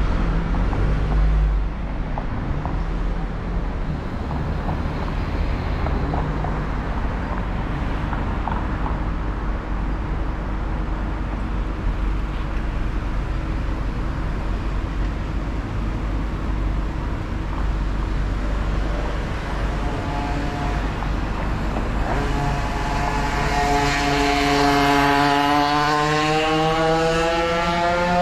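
Car engine idling with a low road rumble. Over the last few seconds a passing car's engine revs up, its pitch climbing as it accelerates across the intersection.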